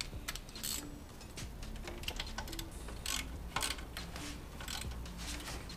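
Socket ratchet clicking in short, irregular runs as a bolt at the front of a Toyota 22RE engine is tightened, with quiet background music underneath.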